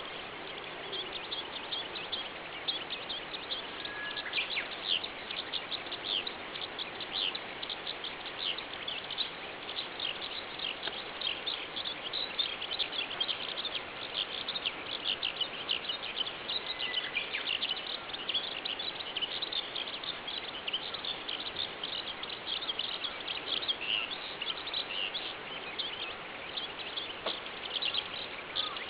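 Eurasian skylark singing in its song flight: a long, unbroken stream of rapid high chirps and trills.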